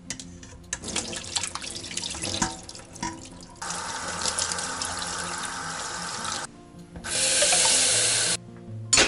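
Kitchen tap running into a stainless steel sink while chicken pieces are rinsed in a plastic colander, after a few seconds of knocks and clatter from handling the bowl and colander. The water stops briefly, then the tap runs again louder and brighter, filling a saucepan, and stops shortly before the end.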